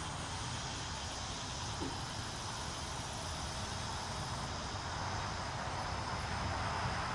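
Insects calling steadily in a grass field over a low rumble. A broad rushing noise swells gradually toward the end.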